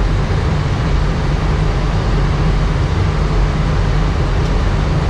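Steady flight-deck noise inside an Airbus A319 in flight with the engines at idle thrust: an even rush of air over a strong low rumble.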